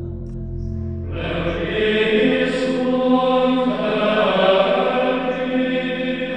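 Sacred choral chant music: voices holding slow sustained notes, with low notes at first and a fuller set of higher voices coming in about a second in.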